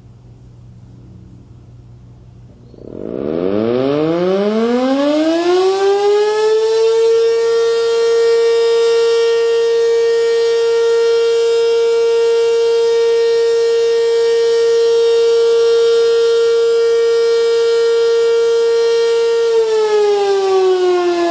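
ACA Banshee 115 electromechanical outdoor warning siren winding up about three seconds in, its pitch rising to a steady loud tone with a stack of overtones, sounding the alert signal of its monthly test. Near the end it starts to wind down, the pitch falling.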